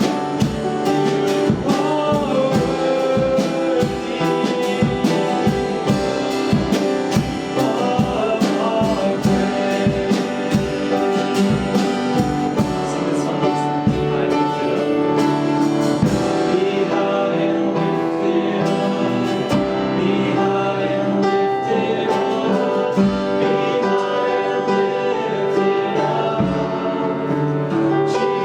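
A worship song played with singing, drums and other instruments. A little past halfway through the drums drop out and the music softens to sustained chords.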